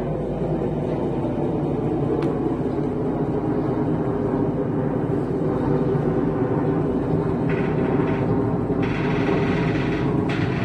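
Truck engine running steadily. A higher hiss comes and goes over its last few seconds.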